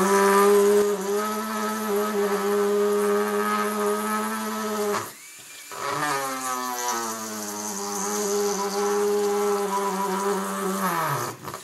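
Handheld rotary tool with a small drill bit whining steadily as it drills out the plug over a Mikuni carburetor's idle mixture screw. This is the first pass with the smaller bit, to open the hole. The tool stops briefly about five seconds in, starts again with a wavering pitch, and winds down near the end.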